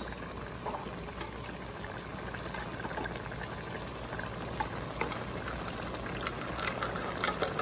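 Food cooking in a pot on the stove, a steady bubbling hiss with faint scattered pops.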